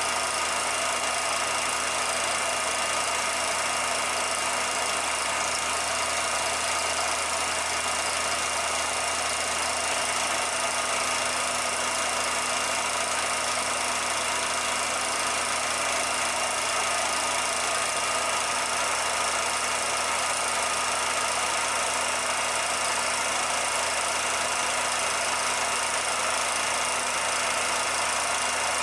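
16mm film projector running: a steady mechanical whir with hiss and a few constant tones, unchanged across the picture's cuts. This is the projector's own noise on the transfer of a silent film, not sound from the scenes shown.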